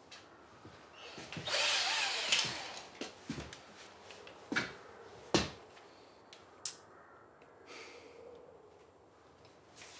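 Power drill run briefly, about a second of spinning. Then scattered footsteps and sharp knocks, the loudest about halfway through.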